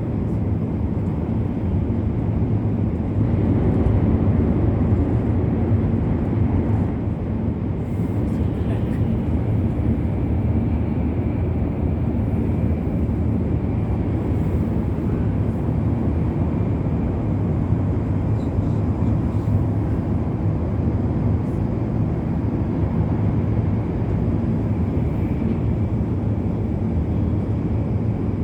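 Steady low rumble of a Hokuriku Shinkansen train running at speed, heard from inside the passenger cabin.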